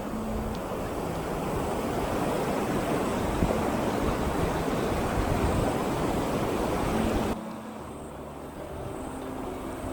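Rushing water of a mountain stream, heard as a steady noisy rush that drops abruptly in level about seven seconds in.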